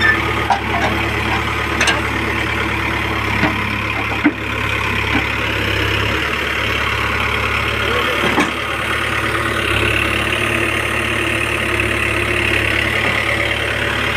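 Case 851EX backhoe loader's diesel engine idling steadily, with a few sharp metal clanks as its bucket works against the concrete mixer's tow frame.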